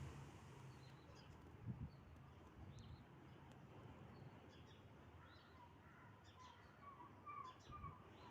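Faint birds chirping against a quiet background: scattered short high chirps, and a run of short lower notes in the second half. A soft low thump about two seconds in.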